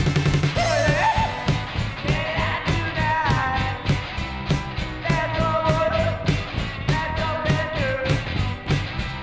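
Live garage rock band playing: electric guitar, electric bass and a fast, steady drumbeat, with a singer's voice over them.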